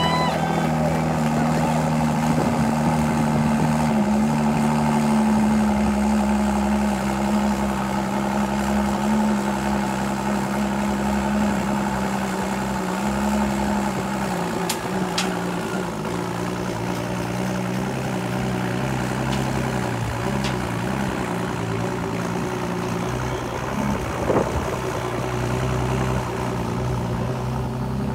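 Engine idling steadily with a low hum. The hum changes pitch about halfway through, and a few sharp clicks and a short knock come in the second half.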